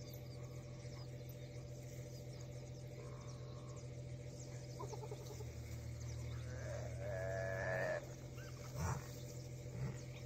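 Animal calls over a steady low hum: a wavering, pitched call of about a second and a half a little past the middle, then two short calls near the end.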